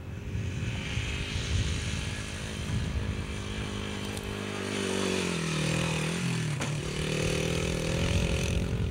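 Dirt bike engine running under throttle as the motorcycle rides past on a dirt track. Its pitch drops about halfway through, then climbs and holds again.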